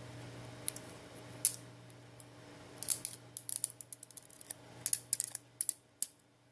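Quick series of light, sharp clicks and taps from small parts of a smartphone being handled, in bunches in the middle and near the end.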